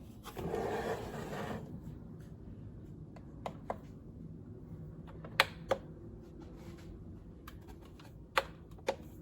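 A brief rustle about half a second in, then a faint steady hum broken by a few sharp light clicks, mostly in close pairs.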